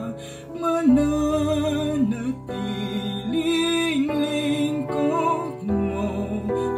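A man singing a slow Tagalog ballad in long held notes that step up and down, over instrumental accompaniment.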